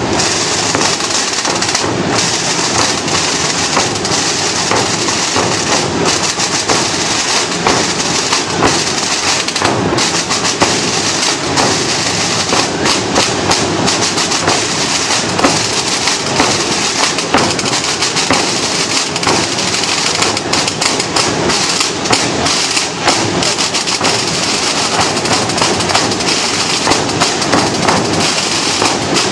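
A large massed corps of snare drums and bass drums playing together: a loud, continuous, dense rattle of many drumsticks on drumheads with deeper bass-drum beats underneath.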